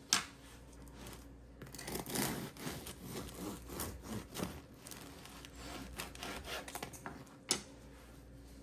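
Handling noise: a sharp click, then a few seconds of irregular rubbing and scraping, and another sharp click near the end.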